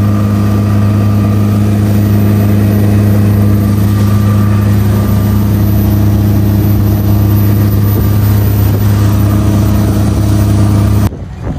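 High-speed boat's engines running loud at a steady pitch. Near the end the engine sound cuts off suddenly, giving way to wind buffeting the microphone.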